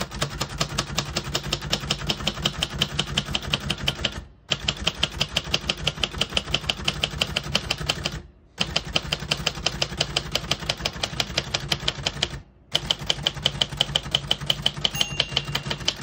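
1971 Royal Custom III manual portable typewriter (elite typeface) being typed on: rapid, even keystrokes as the typebars strike the platen, in four runs with short pauses between, the keys striking cleanly without sticking or skipping. Near the end a single bell ding sounds as the carriage nears the right margin.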